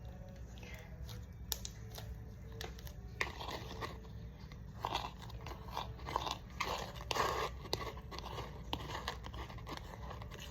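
Slime being squished and pressed by hand: a run of sticky clicks and crackly pops, busiest in the middle, over a low steady hum.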